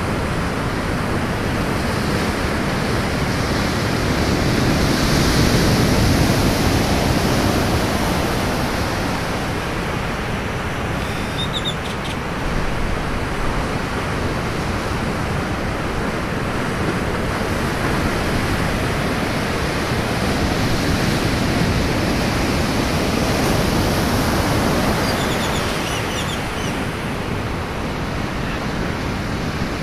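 Ocean surf breaking on a beach: a steady rush of white water that swells louder about five seconds in and again about twenty seconds in.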